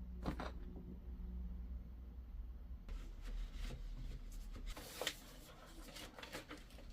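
Vinyl record packaging being handled and unwrapped: a short rustle at the start, then about four seconds of crinkling and rustling from about three seconds in.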